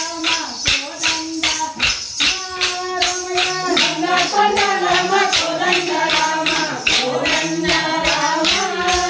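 Wooden dance sticks clacking together in a steady beat, about two to three clacks a second, with singing over them: the music of a stick dance.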